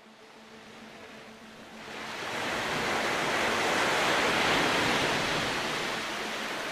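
Rushing, splashing water: a steady noise that swells up about two seconds in, is loudest near the middle and eases off toward the end.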